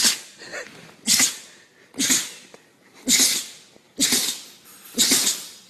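A dog sneezing over and over, a sharp sneeze about once a second.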